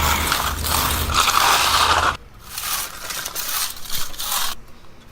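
Broom bristles scraping across fresh concrete to give it a broom finish, in two stretches with an abrupt break about two seconds in.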